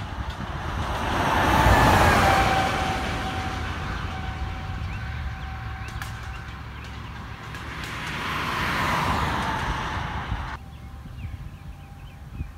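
Two road vehicles passing one after another, each swelling up and fading away with tyre noise, the first about two seconds in and the second about nine seconds in. The traffic noise cuts off abruptly near the end, leaving a quieter background.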